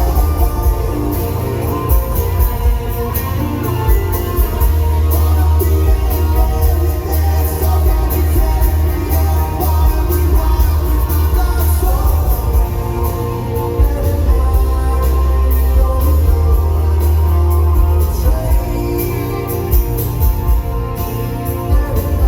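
Rock band playing live with a singer, heard as an audience recording with a heavy, booming low end.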